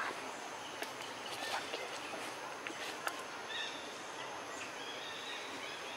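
Outdoor ambience with a steady hiss, scattered sharp clicks and rustles through the first half, and a few short high calls around the middle.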